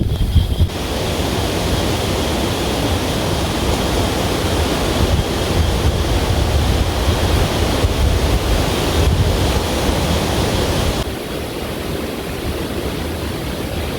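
Strong wind blowing over the microphone as a loud, steady rush with heavy low buffeting, easing a little about eleven seconds in.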